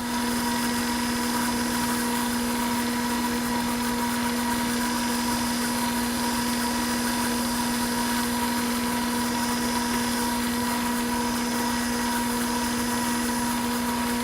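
Bridgeport milling machine running at a steady speed with a constant hum while center drilling holes in an aluminum blank.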